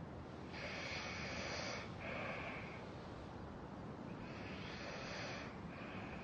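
A man breathing slowly and audibly in his sleep: two breaths, each a long hissing draw followed by a shorter one.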